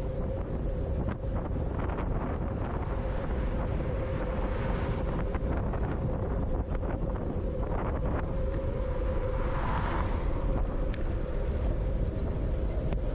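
Wind buffeting a GoPro Hero 9's microphone, its wind reduction switched off, as a bicycle rolls along a paved street: a steady low rumble with a steady hum underneath and a few faint ticks.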